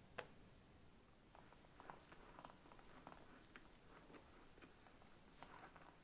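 Faint soft scrapes and ticks of an icing spatula spreading whipped cream over a chocolate sponge layer, after a single sharp click near the start.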